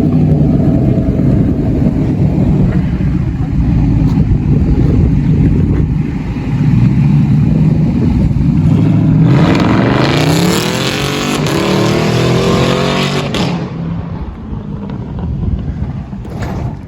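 6th-gen Camaro SS 6.2-litre V8 running loud through a 3-inch H-pipe exhaust with its valves held open. About nine seconds in it is revved up hard, the note climbing steadily for about four seconds before easing off again.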